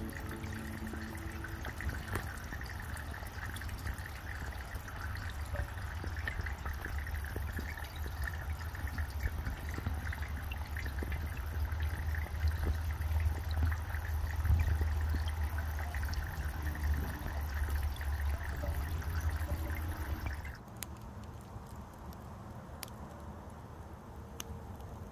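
Small solar-powered floating fountain spraying into a bowl pond, the jet splashing and trickling onto the water surface. About twenty seconds in it cuts off suddenly, leaving a much quieter background with a few faint clicks.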